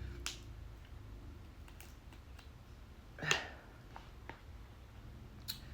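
Crab legs being cracked and picked apart by hand while eating: scattered sharp clicks and shell cracks, with one louder, longer crunch about three seconds in.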